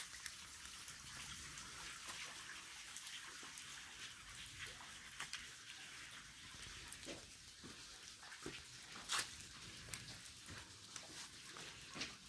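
Scattered footsteps crunching on leaf litter and rock over a soft, steady hiss. One sharper crunch or knock comes about nine seconds in.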